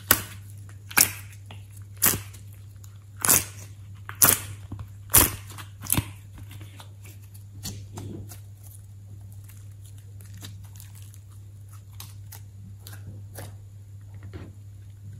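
Soft clay being pushed out of a silicone honeycomb mould and squeezed by hand, with sharp pops about once a second for the first six seconds, then quieter squishing.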